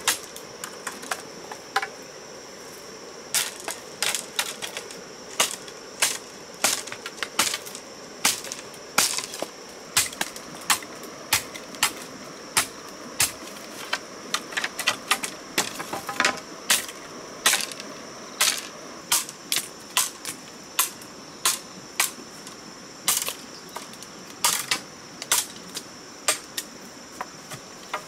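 Water drops falling onto tent fabric, landing as irregular sharp taps about one or two a second, over a steady high-pitched insect drone.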